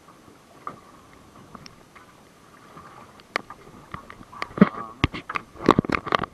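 Water slapping and knocking against the side of a small fishing boat at sea, quiet at first, then a quick run of sharp knocks and splashes in the second half. A faint steady whine sits underneath.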